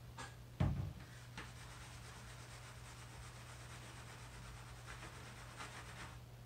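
A plastic squeeze bottle is set down on a wooden tabletop with one sharp thump about half a second in. Then come several seconds of steady rubbing and scraping as a plastic lollipop mold is handled on the table, with a low electrical hum underneath.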